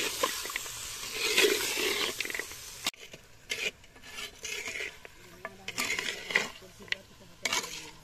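A metal spatula stirring goat meat in a hot pot, scraping the pot as the meat sizzles. About three seconds in it stops abruptly, and a few scattered clinks and scrapes follow.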